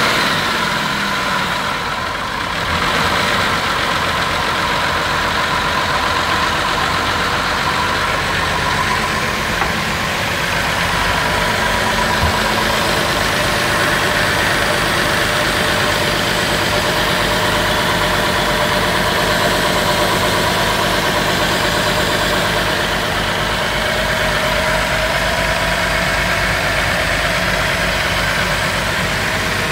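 Boat's inboard diesel engine idling steadily just after a cold start, heard close up at the open engine hatch. The sound dips briefly about two seconds in, then holds steady.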